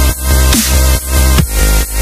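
Electronic dance music with heavy bass and a pumping beat, just over two pulses a second.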